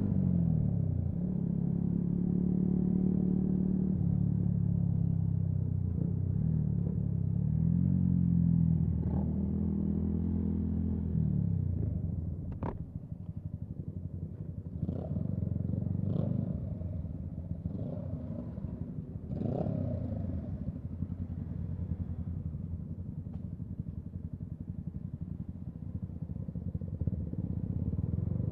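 Single-cylinder engine of a Yamaha MT-125 motorcycle at low speed, its pitch rising and falling for the first dozen seconds, then settling to a quieter idle. A sharp click comes about halfway through, and there are a few short revs after it.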